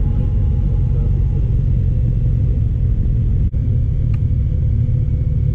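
Steady low rumble of wind buffeting the camera microphone and the Honda ST1300's V4 engine running while the motorcycle rides at road speed. There is a brief dropout about three and a half seconds in.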